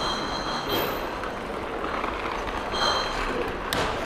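Street traffic and rushing noise heard while cycling along a road, with a high thin whine that comes in twice and a single sharp click near the end.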